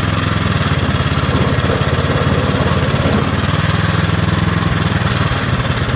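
Craftsman 21-inch snowblower's 123cc four-stroke overhead-valve engine running steadily at low speed, its revs not climbing and the engine choking. The owner takes it for a carburettor problem.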